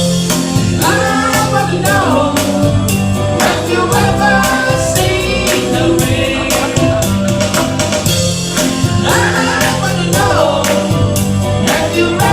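Band playing a mid-tempo pop-rock song, with singers carrying the melody over a steady drum beat and bass.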